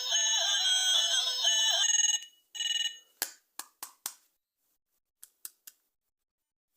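A battery-operated toy's electronic sound chip playing a beeping, stepping synthetic tune that stops about two seconds in, then one short beep. This is followed by four sharp plastic clicks and, a second later, three fainter clicks.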